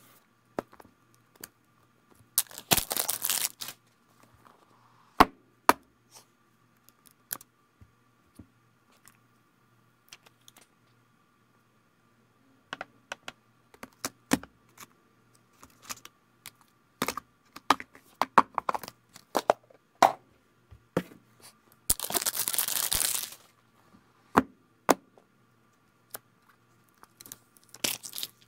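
Apple iPhone 11 retail boxes and phones being handled on a table: scattered taps and clicks as boxes and phones are set down and picked up. Twice, about 2.5 s in and again at about 22 s, a longer rustling swish of about a second as a box's packaging is opened.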